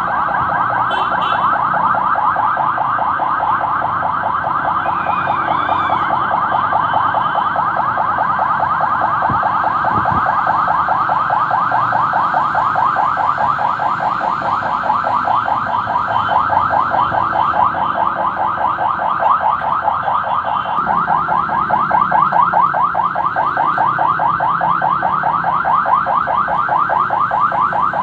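Electronic vehicle siren sounding without a break in rapid, repeated sweeps, several a second. Engine and road noise from a moving vehicle run underneath.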